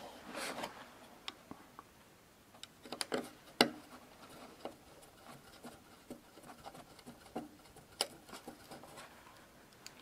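Light clicks and small scrapes of fingers and a small tool handling an M.2 NVMe SSD on a PCIe adapter card as the drive is secured in place. A few sharper clicks stand out, about three and a half seconds in and again about eight seconds in.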